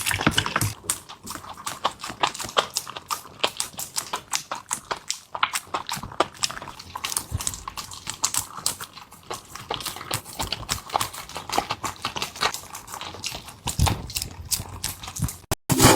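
A dog eating its prepared meal: a dense, irregular run of quick wet smacks, crunches and clicks as it chews and laps.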